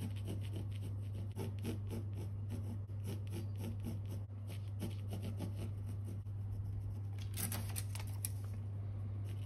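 Graphite pencil scratching on primed canvas in quick short strokes, a few a second, with a brief louder scrape near the end, over a steady low hum.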